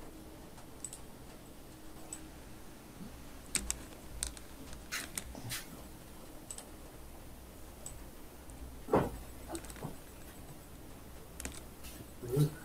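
Sparse, quiet clicks of a computer mouse, about a dozen at irregular intervals, as points of a mask are placed one by one in After Effects. About nine seconds in comes one duller, heavier knock, over a faint low hum.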